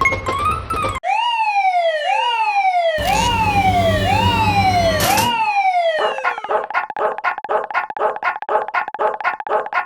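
Level-crossing warning alarms of unusual design. First a falling, siren-like tone repeats a little faster than once a second, with a low rumble under it for about two seconds. Then, from about six seconds in, a quick ringing pulse sounds about three times a second. Piano music plays in the first second.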